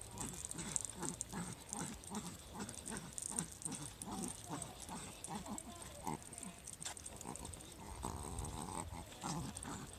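Small dog panting in quick, rhythmic breaths as it trots along on a leash.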